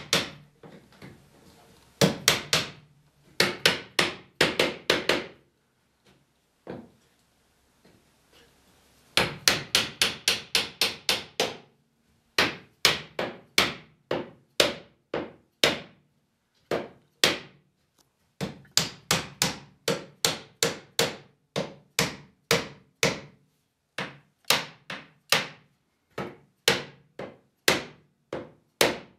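A hammer knocking the wooden arm bow of a continuous-arm Windsor chair down over its spindle tops in a dry fit: runs of quick, sharp blows, several a second, with short pauses between runs.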